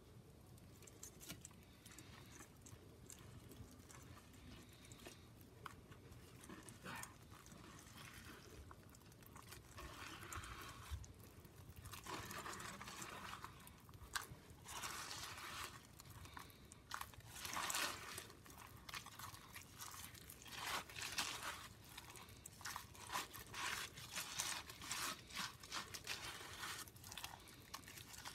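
Wet, gritty Comet-and-Pine-Sol paste being squished and pressed by a gloved hand through a metal mesh strainer, a soft crunching. Faint at first, it comes in quick irregular strokes that grow louder from about halfway in.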